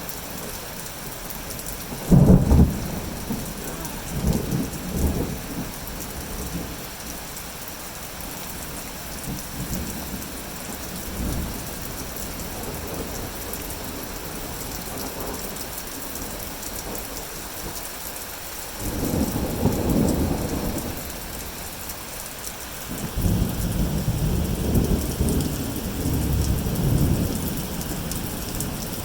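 Heavy rain falling steadily with thunder. A sharp, loud crack comes about two seconds in and trails into rumbling, and long deep rolls of thunder come around two-thirds of the way through and again near the end.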